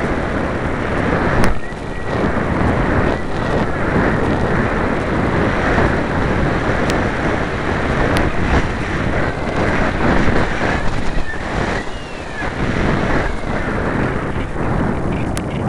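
Air rushing over the microphone of a camera mounted on a light model thermal glider in flight in blustery wind: a loud, steady rush that surges and eases. It dips briefly about two seconds in and again near twelve seconds.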